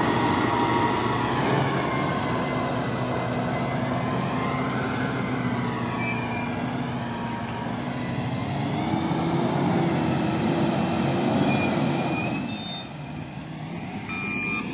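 LiuGong 848H wheel loader's diesel engine running as the loader drives over dirt, revving higher about nine seconds in, then dropping away. Near the end its reversing alarm starts beeping.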